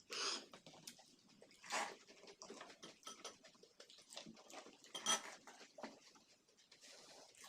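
Close-up eating noises: crisp semolina pani puri shells crunching and the spiced water slurped, in irregular bursts with the loudest about two seconds in and about five seconds in.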